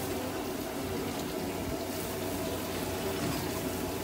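Steady background din of a busy restaurant kitchen: a continuous rushing noise like running water or an extractor, over a low steady hum.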